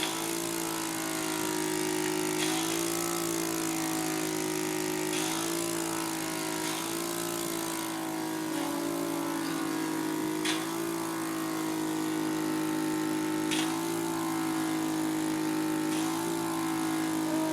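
Cough Assist (mechanical insufflation-exsufflation) machine running with a steady motor hum. Its pitch shifts every two to three seconds, with a click at several of the shifts, as it switches between forcing air into the airway and drawing it back out to mimic a cough.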